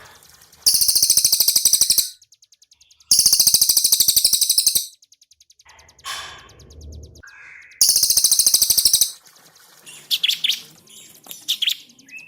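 Cililin and ciblek kristal songbirds singing: three long, loud, rapid rattling trills, followed by a few short high chirps near the end.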